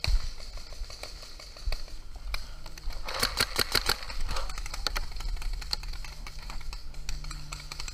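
Paintball gunfire: scattered sharp pops and smacks, with a fast string of shots about three seconds in that lasts over a second.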